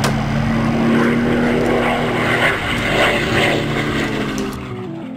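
Propeller aircraft engine running with a steady drone, fading out near the end.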